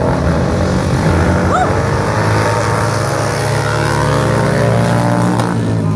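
Several vintage flat-track racing motorcycles running hard on a dirt oval, their engine pitch rising through the middle as they accelerate past.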